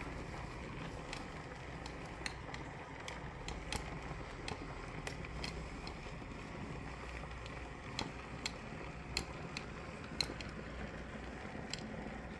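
Handheld garment steamer running against a shirt: a steady hiss with scattered sharp crackles and pops at irregular moments.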